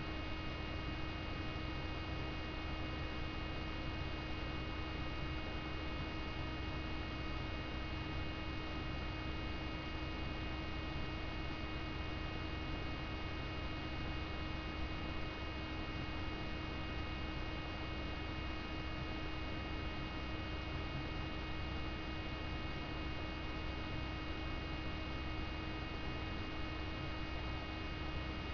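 A steady electrical hum and hiss with several constant tones, unchanging throughout.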